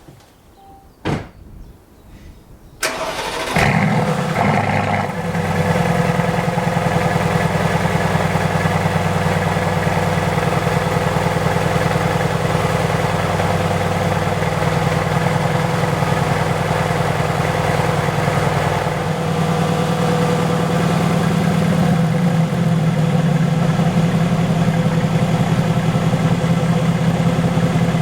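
Mercedes-AMG GT's twin-turbo V8 cold-starting: a short click, then the engine fires suddenly about three seconds in and flares up. It then settles into a steady, loud cold idle through the exhaust.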